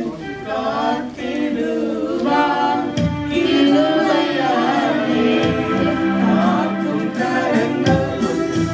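A man, a woman and a boy singing a Tamil Christian song together into microphones. There are two brief low thuds, about three seconds in and near the end.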